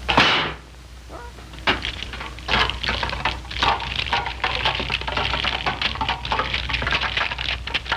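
A sudden loud burst right at the start, then a dense, irregular clattering and crackling that keeps on.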